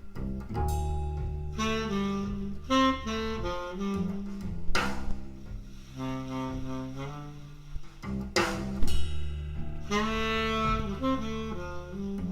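Jazz trio recording played back through a home stereo system: a saxophone plays a melody over a double bass line, with two sharp hits about five and eight seconds in.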